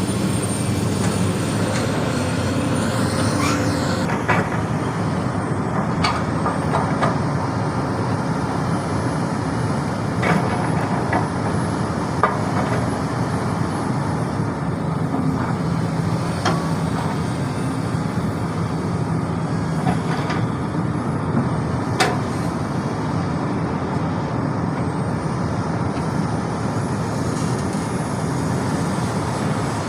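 Excavator's diesel engine running steadily under hydraulic working load, with a few short sharp knocks.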